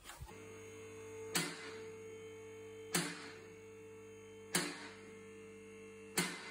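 Background music: a held chord with a sharp percussive hit about every second and a half, four hits in all.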